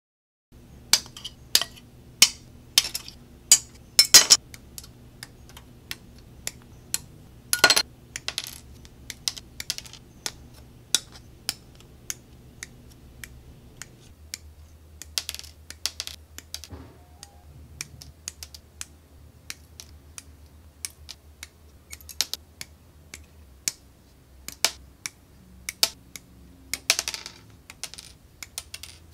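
Plastic kit parts being snipped off their sprues with side cutters: a run of sharp, irregular clicks, some much louder than others, over a faint steady low hum.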